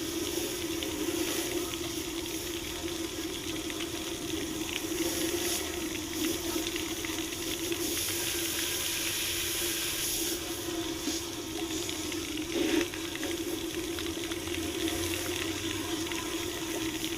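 Pressure washer spraying water into the cooling jackets of a cast-iron Ford FE V8 engine block, flushing crud out of them: a steady hiss of spray with a steady hum under it.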